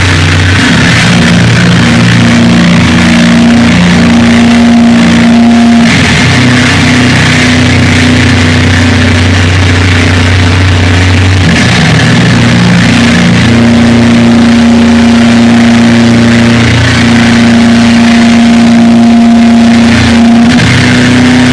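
Live heavy rock band playing very loud, distorted chords that are held for several seconds each, changing about every five or six seconds, recorded through a phone's microphone.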